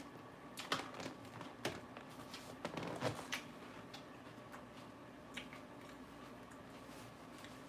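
Crisp lettuce being bitten and chewed, with a few sharp crunches in the first three and a half seconds and a smaller one later, over a faint steady hum.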